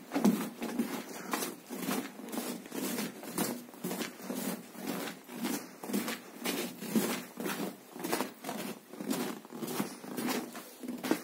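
Footsteps crunching through packed snow on a floor, an even walking pace of about two steps a second.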